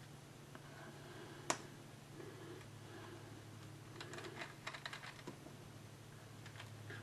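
Faint clicks and taps of a metal fork against a parchment-lined metal sheet pan as smashed baked potatoes are pressed together into patties. There is one sharp click about a second and a half in, then a quick cluster of clicks around four to five seconds in, over a steady low hum.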